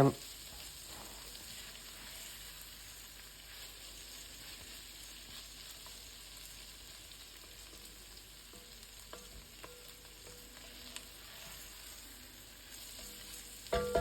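Onions, garlic and bacon sizzling gently in a frying pan while being stirred, with a few light utensil clicks and a sharper knock with a short ring near the end.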